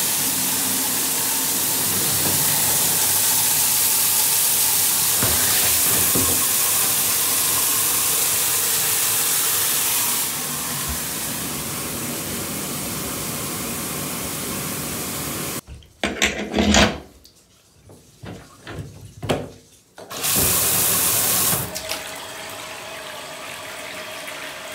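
Water spraying from a handheld shower head into an acrylic bathtub around the overflow, a steady rushing hiss for about fifteen seconds, during a leak test of a newly fitted drain and overflow. Then a few seconds of scattered knocks and handling, a short burst of spray, and water running steadily from the tap into the tub.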